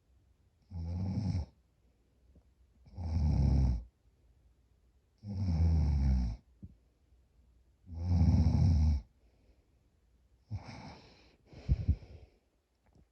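Heavy snoring from a sleeping person with sleep apnea: four long, loud snores at regular breaths, then two shorter, broken snores near the end.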